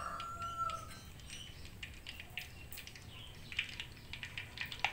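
Dried yellow noodle cracker frying in hot oil in a wok: an irregular, scattered crackle and spit of oil as the cracker puffs up. A rooster's crow trails off in the first second.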